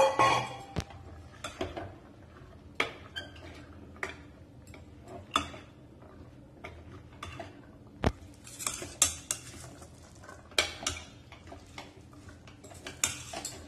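Long steel ladle stirring soaked chickpeas into masala in a metal pressure cooker pot, with irregular scrapes and clinks of the ladle against the pot's sides and rim. A loud knock comes right at the start and a sharp clink about eight seconds in.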